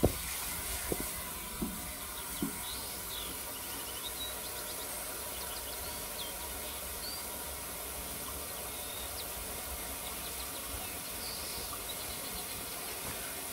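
Garden hose running steadily into a glass aquarium tank, a continuous hiss of water splashing. There are a few light knocks in the first two or three seconds, and birds chirp faintly now and then.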